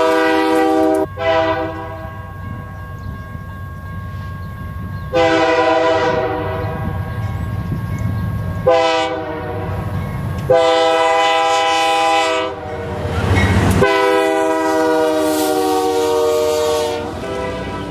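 Nathan K3-series three-chime locomotive air horn sounding a series of blasts: one cutting off about a second in, then after a pause a long blast followed by several more separated by short gaps. Between the blasts the diesel locomotive rumbles.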